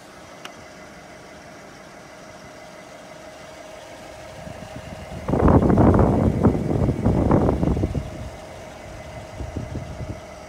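Toyota Vitz's 1.3-litre 2SZ four-cylinder engine idling, with a steady faint whine throughout. About five seconds in, a loud rough, uneven noise lasts for about three seconds as the microphone is brought under the car by the exhaust.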